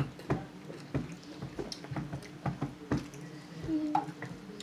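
Drinking soda from a plastic bottle: small wet clicks and swallows scattered through. A faint steady low hum runs underneath.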